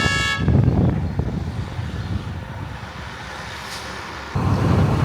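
A horn ends within the first half second, followed by a low vehicle rumble with wind noise on the microphone. The rumble fades somewhat, then jumps abruptly louder about four seconds in.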